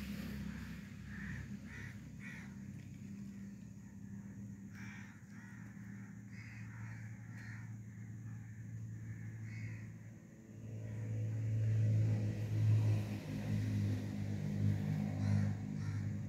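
Crows cawing, a string of short calls, over a steady low hum that gets louder about ten seconds in.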